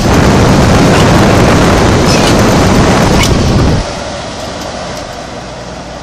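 1970s GE Slumberline window air conditioner running with its fan on high, the airflow from the outlet grille rushing loudly across the microphone. A little under four seconds in the rush drops sharply to a quieter, steady running noise.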